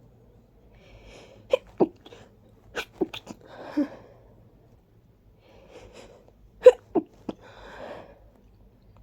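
A person sneezing with a congested nose in an allergy sneezing fit: short breathy buildups, then several sharp sneezes in quick succession. It comes in two clusters, the first about a second and a half in and the second near seven seconds.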